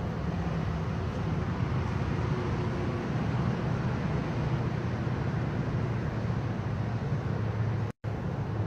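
A steady low mechanical drone with a noisy rush over it, like a running vehicle, that cuts out for an instant near the end.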